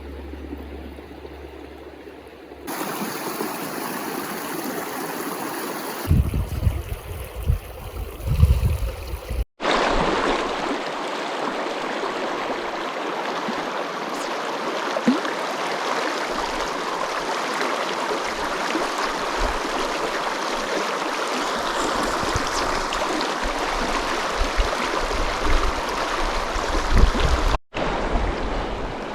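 Mountain river rushing steadily over its bed, with bursts of low rumble in places.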